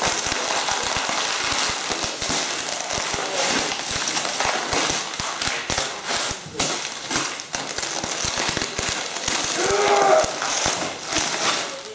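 Brown parcel tape crackling and ripping as it is torn loose from the floor and pulled off clothing, a dense, unbroken run of sharp snaps and crackles.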